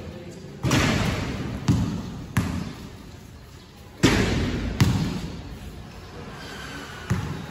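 Basketball bouncing and hitting hard in a gym: about six hits, the two loudest about half a second in and about four seconds in, each ringing out in the hall, with softer low thuds between them.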